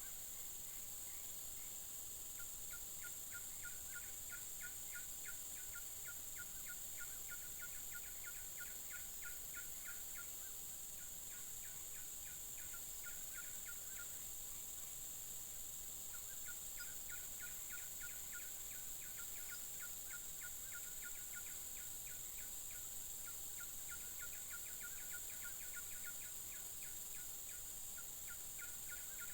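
Riverside wildlife: a steady high-pitched drone, with a rapid pulsed animal call, about three pulses a second, repeating in bouts of several seconds that break off and start again.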